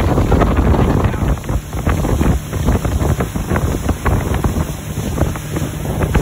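Wind buffeting the microphone aboard a ski boat under way, in uneven gusts, over the boat's engine running and water rushing past the hull and wake.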